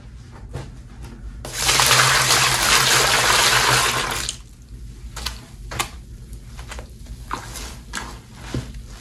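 Tap water pours into a metal bowl coated with soap paste, running for about three seconds before it is shut off. After that come scattered wet squishes and splashes as sponges are pressed into the sudsy water.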